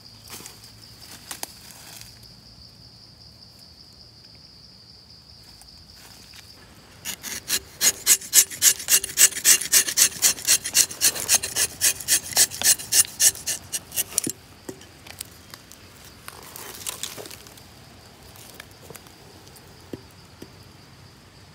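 Rubber-tapping knife shaving a thin strip of bark along the tapping cut of a rubber tree. It makes a rapid, rhythmic rasping scrape of about four strokes a second, starting about a third of the way in and lasting around seven seconds.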